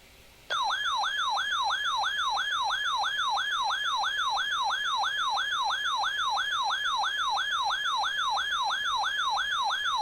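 Weather alert radio's built-in siren alarm: a loud warbling tone sweeping up and down about three times a second, starting about half a second in. It signals that an incoming severe thunderstorm warning is being received.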